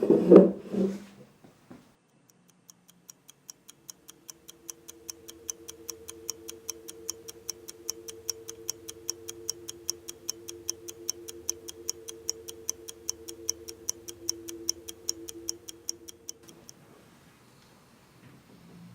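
Watch ticking fast and evenly, about four to five ticks a second, fading in about two seconds in and stopping near the end. A low, steady two-note hum runs beneath it.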